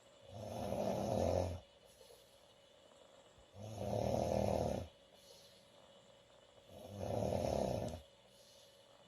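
A woman snoring loudly, three snores about three seconds apart, each lasting over a second.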